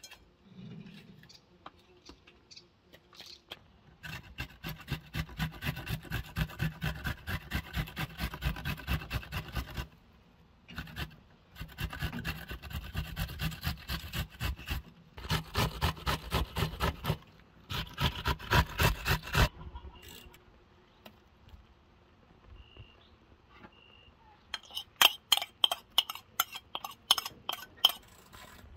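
Fresh red peppers rubbed down a stainless steel box grater in quick, even strokes, about three a second, in four runs with short pauses between. Near the end, a metal spoon scrapes and clicks against a plate.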